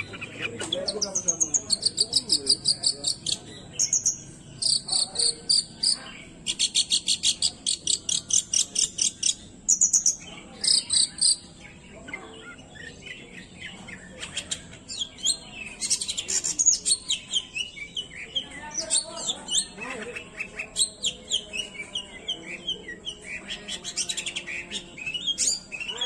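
Caged long-tailed shrike (cendet) singing: fast runs of repeated high, chattering notes in bursts with short pauses, then softer, more varied calls in the second half.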